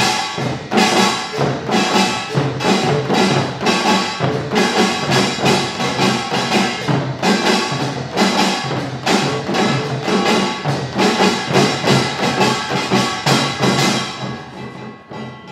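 Utdari samulnori played by a seated percussion ensemble: kkwaenggwari small gongs clanging over janggu hourglass drums and buk barrel drums, with a jing gong, in a fast, dense rhythm of rapid strokes. The playing drops sharply in volume near the end.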